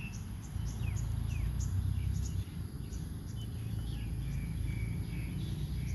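Rural outdoor ambience: small birds chirping in short calls and quick downward sweeps every second or so over a steady high insect drone and a low rumble.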